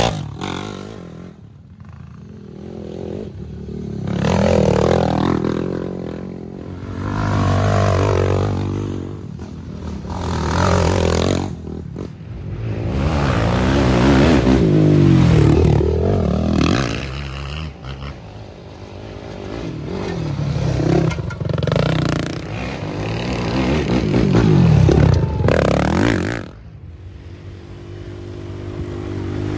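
ATV engines revving hard as quads pass one after another on a dirt trail, each pass swelling and fading, about half a dozen in all.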